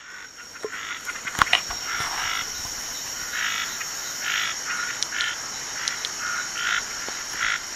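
A chorus of frogs and insects: a steady high insect drone under frogs calling in short repeated bursts, about one a second. A couple of sharp clicks come about a second and a half in.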